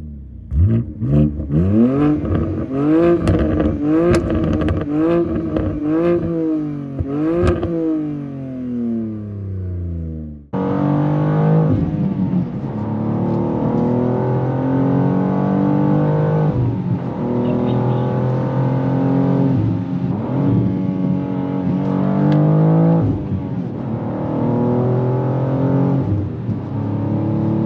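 BMW G87 M2's S58 twin-turbo straight-six on an aftermarket cat-back exhaust, revved at a standstill in quick blips about once a second. About ten seconds in, the sound cuts to the engine heard from inside the cabin while driving, its pitch climbing and dropping through gear changes.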